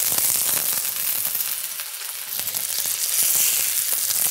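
Prosciutto-wrapped chicken cutlets frying in hot olive oil in a cast-iron skillet: a steady sizzle with many small crackles, easing off a little about two seconds in.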